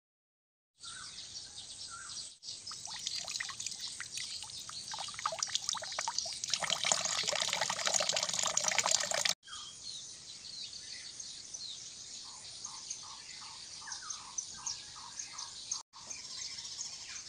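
Short outdoor clips cut together. First a dense crackling hiss grows steadily louder. Then come bird calls in a quick, even run of about three or four short chirps a second.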